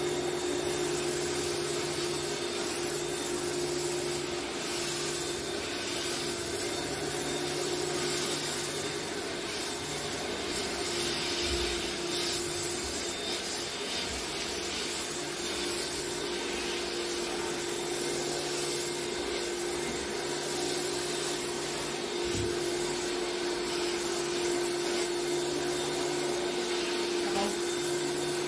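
Upholstery extraction machine's vacuum running steadily with a steady whine, sucking through an upholstery hand tool as it is drawn over sofa fabric. A lower hum cuts in and out every few seconds.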